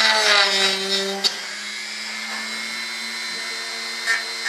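Handheld rotary tool with a small cut-off wheel running with a steady whine. It is louder for about the first second, then runs on steadily at a lower level.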